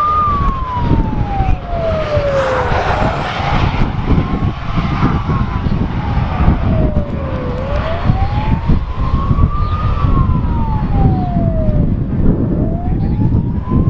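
Fire engine siren wailing, its pitch rising and falling slowly with a peak about every five seconds, over a heavy low rumble.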